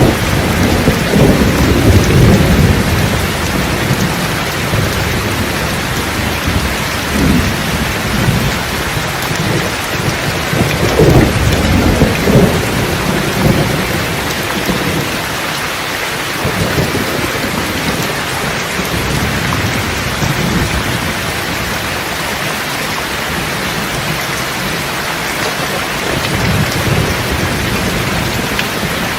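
Steady heavy rain with rolling thunder. The rumbles swell in the first few seconds, again around the middle, where they are loudest, and once more, more faintly, near the end.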